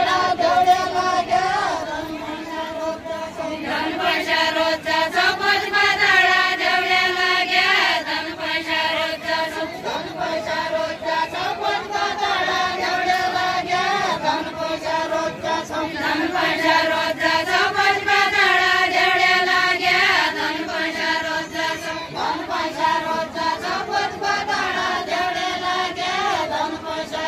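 Group of women singing a deuda folk song together in unison, unaccompanied, in long drawn-out melodic phrases.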